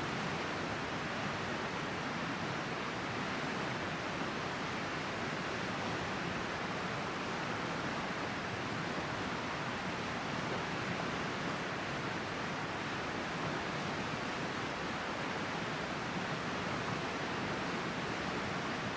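River flowing: a steady, even rush of water with no breaks.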